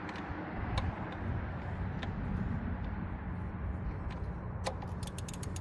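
Hand tools clicking against metal engine parts: a few separate clicks, then a quick run of clicks near the end, over a steady low rumble.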